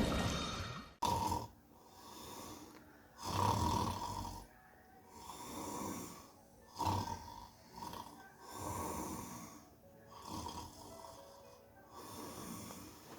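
A man snoring heavily, one snore after another at uneven intervals of about one to two seconds.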